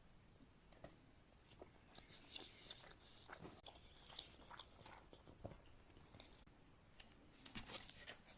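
Faint close-up chewing of sushi: soft wet mouth clicks and smacks, busier near the end.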